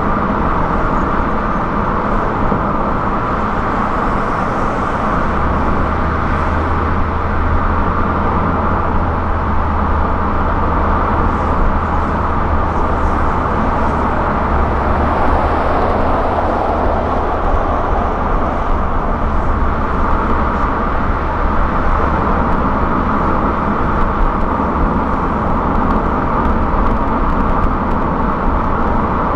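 Steady road and tyre noise of a car cruising at highway speed. A low drone joins in about five seconds in and eases off past the middle.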